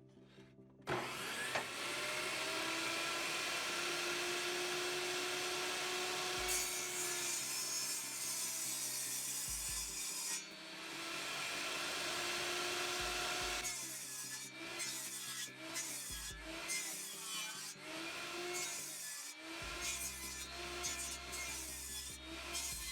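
Table saw cutting a series of half-depth kerfs across a 2x4: a long steady cut, a brief dip, then from about halfway a string of shorter passes with breaks between them.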